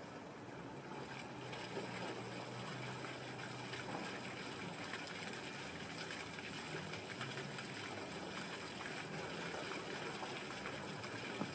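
Water jet from a small solar-powered fountain pump spraying up and splashing back into a plastic tub. It grows louder about two seconds in as the panel is turned to face the sun and the jet rises higher.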